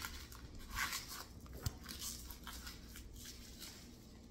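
Foil Pokémon card booster pack being torn open and crinkled in the hands, a run of crackly rustles, loudest about a second in.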